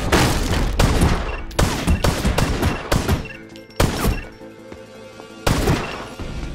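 Pistol shots fired in quick strings, each with a short echoing tail: a rapid run over the first three seconds, then two single shots a second or two apart, over a steady music score.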